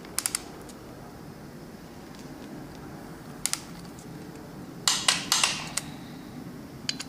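Metallic clicks and clinks of small bolts and a hand tool against a steel Gen3 Hemi cam phaser as its plate bolts are started by hand: a few single clicks, then a louder run of clinks about five seconds in.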